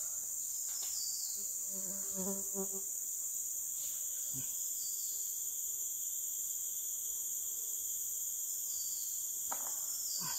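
Insects shrilling steadily in the forest, a continuous high drone at two pitches, with another steady insect tone joining about four seconds in. A few faint clicks near the end.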